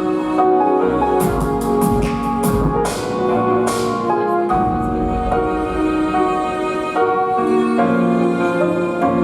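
Instrumental music: sharp drum strokes over a melody for the first few seconds, then held, sustained melodic tones without the drums.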